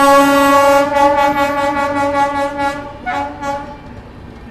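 Indian Railways train horn sounding one long blast that weakens about a second in and dies away, followed by a short second toot near the end.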